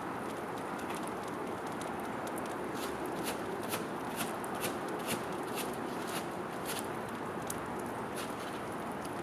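A squirrel cracking and eating sunflower seeds: irregular sharp, dry cracks, two or three a second, over a steady hiss.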